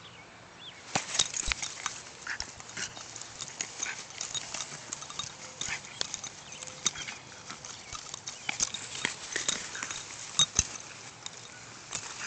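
A puppy playing with a small soccer ball: irregular knocks, clicks and scuffs as it bites, noses and rolls on the ball, starting about a second in.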